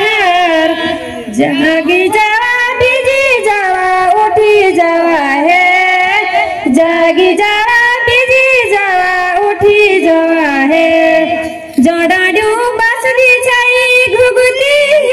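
A woman singing a Garhwali folk song through a microphone, with long held notes that waver and bend in pitch and a brief pause for breath about twelve seconds in.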